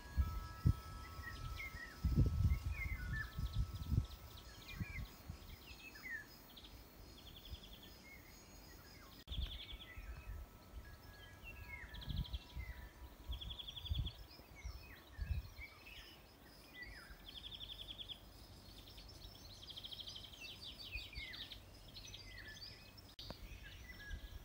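Several wild birds singing and calling, with short chirps, sliding notes and brief buzzy trills repeating every few seconds, over a quiet rural background. A few low rumbling bumps on the microphone come through, loudest in the first few seconds and again around the middle.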